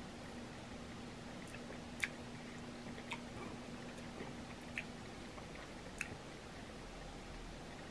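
Sparse, faint crackles and clicks of boiled shellfish shell being peeled apart by hand, with fingernails clicking on the shell.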